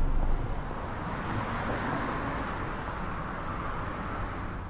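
A car driving past, its road noise swelling over a couple of seconds and then slowly fading.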